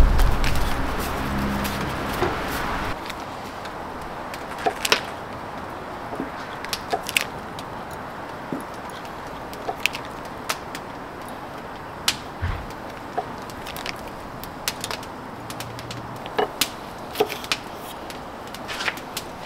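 Oak wood fire crackling: sharp, irregular pops and snaps over a steady low hiss, with a low rumble in the first few seconds that fades out.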